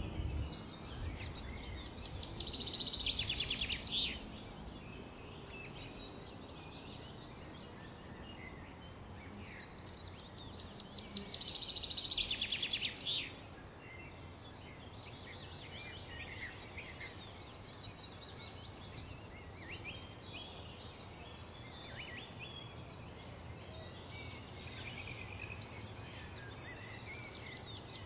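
Birds chirping over a steady low background hiss, with two louder rapid trills, a few seconds in and about twelve seconds in.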